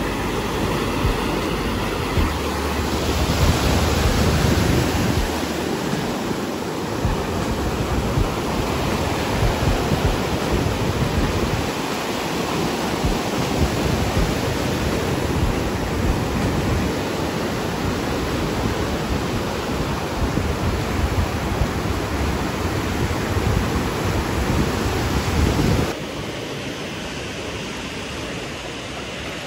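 Sea surf: waves breaking and rushing in a steady wash of noise, with wind rumbling on the microphone at times. It turns quieter a few seconds before the end, where thin foam washes over the sand.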